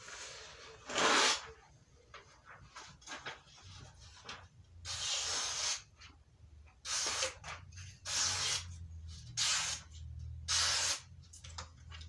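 A freshly sharpened Victorinox kitchen knife slicing through a hand-held sheet of paper, about six cuts, each a short hissing rasp.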